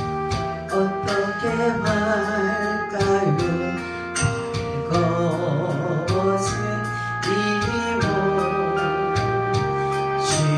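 A woman singing a Korean gospel praise song into a handheld microphone, with vibrato on her held notes, over a keyboard and drum backing with a steady beat.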